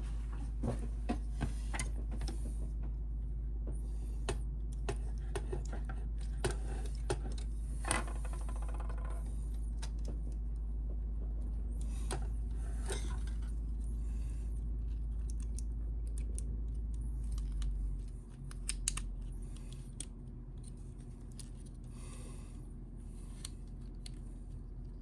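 Hard plastic action-figure parts and accessories clicking and rubbing as they are handled and fitted together, in scattered short clicks and rustles over a steady low hum that drops about eighteen seconds in.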